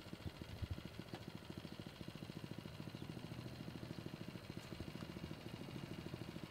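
An engine running steadily at idle, a faint low even pulsing with no change in speed.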